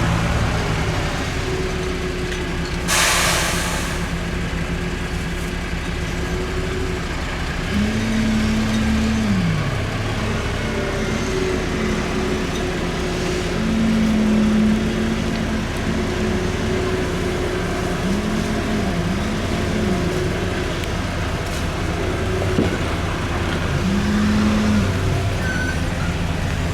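Heavy diesel engine running at a steady idle. Several times its pitch rises, holds briefly and drops back as it revs. About three seconds in there is a short, loud hiss of released air.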